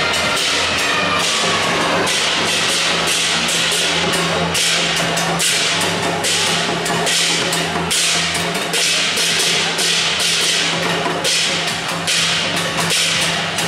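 Temple procession percussion: drums and cymbals striking in a fast, uneven rhythm, with a steady low tone held underneath.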